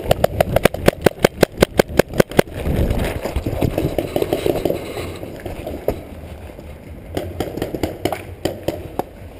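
Paintball marker firing a rapid string of shots, about eight sharp pops a second for two and a half seconds. The shooter then moves in a rustle of clothing and gear, with a few more single pops later.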